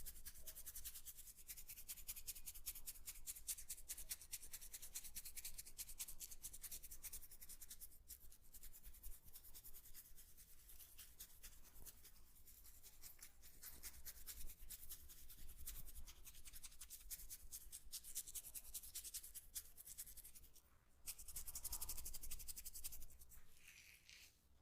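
Fingers scratching and rubbing briskly through hair and over the scalp in a close-miked head massage, a dense, fast, dry scratching. It breaks off briefly near the end, then comes back louder.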